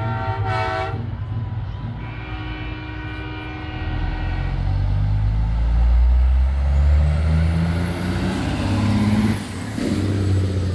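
Semi truck air horn blowing a chord of several tones, briefly near the start and again for about two seconds a couple of seconds in. Then the heavy diesel engine of a passing semi truck, its pitch climbing in steps as it pulls by close, dropping off sharply about nine and a half seconds in.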